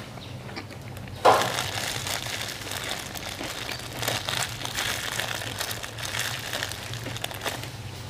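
Thin plastic bag crinkling and rustling as sticky rice is pinched out of it by hand, starting with a sharp rustle a little over a second in and going on irregularly for several seconds.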